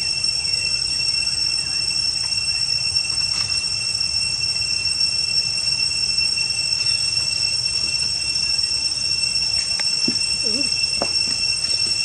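Steady, high-pitched insect drone that holds at an even level, with a few short faint calls about ten seconds in.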